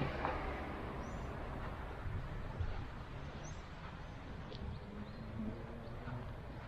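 Street ambience on a windy day: the low rumble of a just-passed vehicle fades out in the first second, leaving a steady low rumble of wind and distant traffic. A few short, faint bird chirps come through it.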